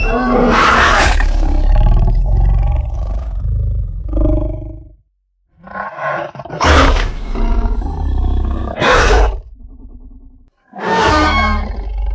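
Mutadon creature sound effect: three harsh, drawn-out roars. The first breaks off about five seconds in, the second trails off quieter before a short gap, and the third begins near the end.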